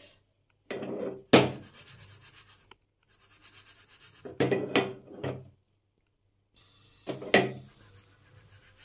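Roasted black chickpeas rattling and sliding in a small black kadhai as it is shaken over a gas burner, in three bouts, each with a sharp knock of the pan. The chickpeas are being warmed through in the dry pan.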